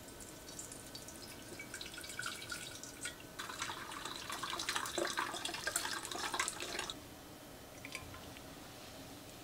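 Rose water poured from an enamel pot through a gauze strainer: a thin trickle that builds into a steady splashing stream, stopping about seven seconds in, followed by a few last drips.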